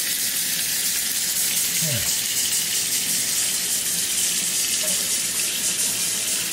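Kitchen faucet running steadily, its stream splashing onto a wet capuchin monkey's back and into a stainless steel sink.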